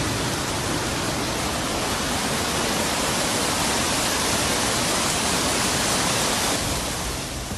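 Heavy storm rain pouring, a steady dense rush of noise that fades out near the end.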